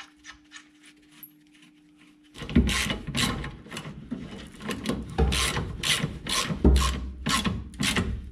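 Ratchet wrench clicking in repeated rasping strokes, about two a second, starting about two and a half seconds in, as the rear shock absorber's lower mounting bolt is tightened against a wrench-held nut. Before that, only faint light clicks.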